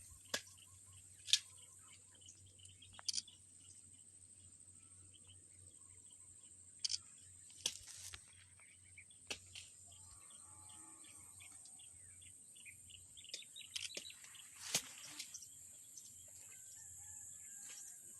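Small birds chirping in short, sharp calls, scattered and irregular, with a busier flurry of chirps near the end.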